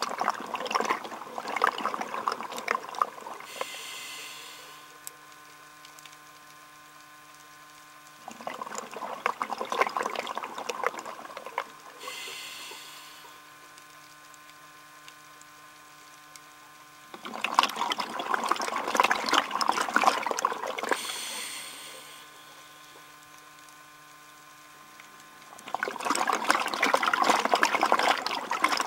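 Scuba diver breathing through a regulator: four bursts of bubbling exhalation about every nine seconds, each followed by a short hiss as the diver draws the next breath. A faint steady hum lies underneath.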